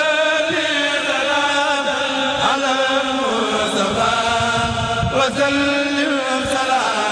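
Men's voices chanting a Sufi khassida in Arabic, unaccompanied and through microphones, in long held notes with sweeping rises in pitch.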